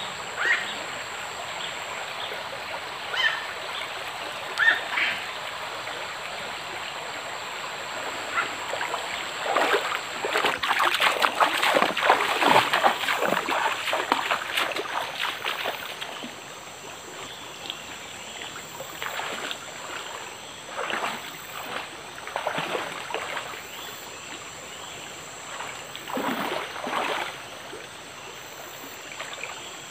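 Water splashing in a small stream over the steady sound of running water: a dense stretch of splashing for about five seconds starting ten seconds in, then a few shorter splashes later.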